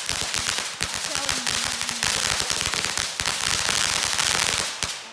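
Ground fountain firework spraying sparks: a dense hiss of rapid crackling pops that dies down near the end.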